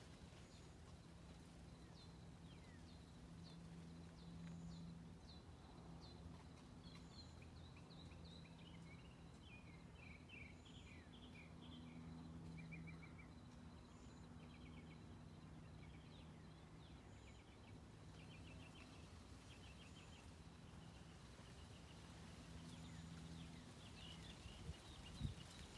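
Small birds chirping and twittering faintly in a morning chorus, short calls and quick trills, over a steady low hum. A few low knocks come near the end.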